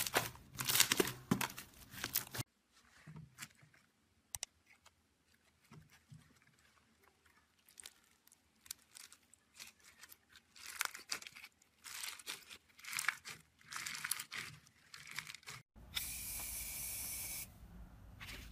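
Hands squeezing and stretching slime, with a string of wet crackles and crunchy pops. First clear slime is pulled apart, then foam-bead slime (floam) is kneaded. Near the end comes a steady hiss of about two seconds, like a can of shaving foam being sprayed.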